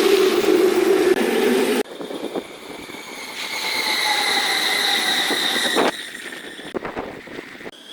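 Trains running past at a railway crossing, played fast-forward and spliced into short segments that cut off abruptly. It is loud at first, then after a sudden cut there are steady high whining tones over the rumble.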